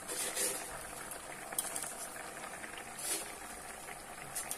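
Chicken pieces with tomato, onion and chilli powder frying in a pot on the stove, a steady sizzle with a few short clicks.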